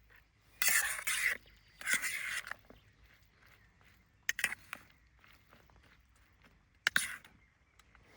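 Two short scrapes about a second apart near the start, then a few sharp clicks or knocks later on: hands-on work with materials.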